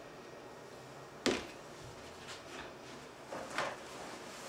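A glass bottle set down on a kitchen counter with one sharp knock about a second in, followed by fainter handling sounds.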